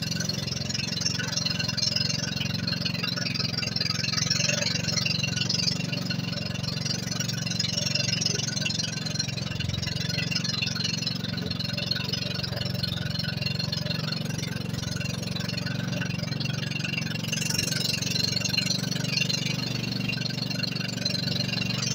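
Small outrigger fishing boat's engine running steadily under way, a constant low drone with a continuous hiss of wind and water over it.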